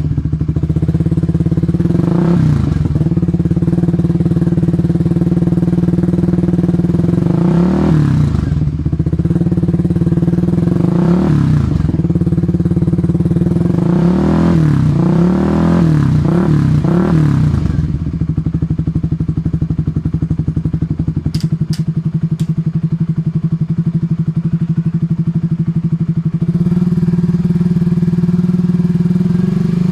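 Suzuki GSX-R150's single-cylinder four-stroke engine idling through a Tridente aftermarket exhaust, blipped with short throttle revs several times, with a quick run of blips in the middle before it settles back to a steady idle.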